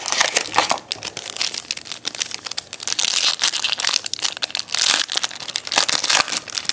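Plastic wrapping crinkling and tearing as a sealed 2011 Bowman Sterling trading-card mini box is opened by hand, a dense run of crackles that is loudest in the middle.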